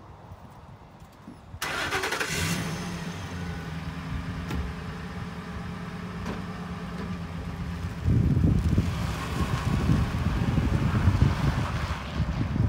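Ford F-150 pickup's engine starting with a short crank, then running at a steady idle. About two-thirds of the way in it turns into a louder, rougher low rumble as the truck drives off.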